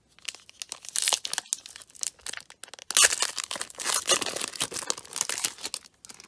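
A plastic trading-card pack wrapper being torn open and crinkled in the hands, a dense crackling with sharp rips, loudest about a second in and again for a couple of seconds from about the middle.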